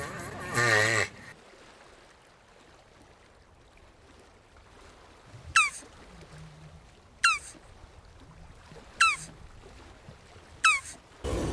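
Four short, sharp chirps, each falling quickly in pitch, evenly spaced about a second and a half apart over a quiet background. A wavering, pitched animal call sounds at the very start and starts again loudly near the end.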